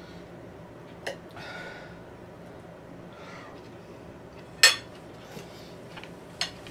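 Metal fork clinking against a plate while eating: three sharp clinks, about a second in, just past the middle (the loudest) and near the end.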